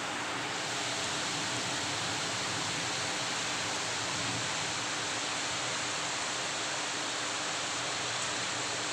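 Rain falling steadily, an even hiss with no distinct drops or changes.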